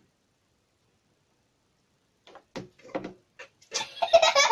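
A few short knocks and clatters, then a child's loud shrieking laughter near the end.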